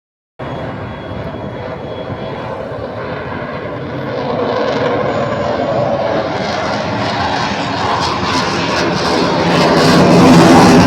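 Aircraft engine noise from an aircraft flying overhead, growing steadily louder as it approaches and loudest near the end.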